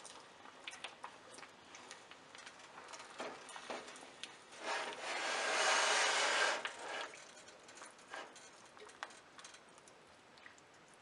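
A spatula stirs and scrapes a thick, wet mix of milk, ricotta cheese and milk powder in a nonstick frying pan, with light ticks of the spatula against the pan. About halfway through, a louder rushing noise lasts about two seconds.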